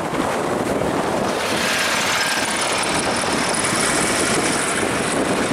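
Wind buffeting the microphone, joined about a second and a half in by the high airflow hiss of a Pitbull 2 F3F racing glider passing at speed, with a faint thin whistle in it.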